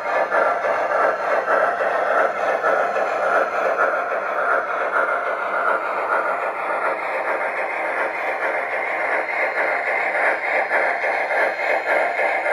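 MTH Premier O-scale Erie Triplex model steam locomotive running, its Proto-Sound 2 sound system playing rapid, even steam chuffing.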